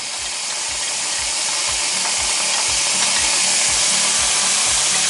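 Diced potatoes sizzling in hot bacon grease in a 12-inch cast iron skillet as they are poured in, the sizzle building louder over the first few seconds and then holding steady.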